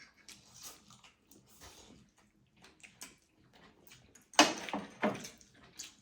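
Close-up eating sounds: wet chewing, lip smacks and small mouth clicks, with a louder burst of slurping or smacking about four and a half seconds in.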